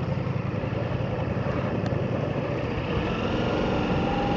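Ducati motorcycle engine running at low speed on a rough off-road descent, a steady rumble. Its engine note comes through more clearly near the end.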